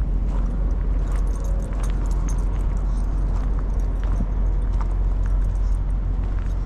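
Light jingling and irregular clicking from walking a dog on a leash over gravel, over a steady low rumble.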